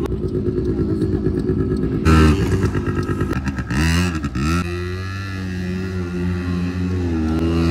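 Quad bike (ATV) engine running and being revved: a sharp rev about two seconds in, the pitch dipping and climbing again near the middle, then a steady engine note.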